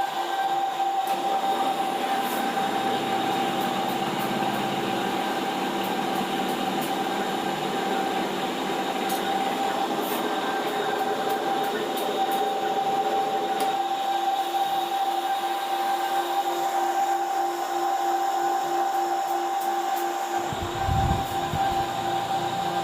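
Jewellery vacuum casting machine running: its vacuum pump hums steadily with a constant whine. A brief low rumble comes near the end.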